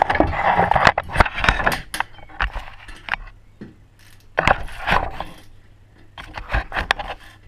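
Metal tools and wheel parts clinking and knocking as a wheel is reassembled: quick runs of sharp clicks, densest in the first two seconds, then two more clusters later on.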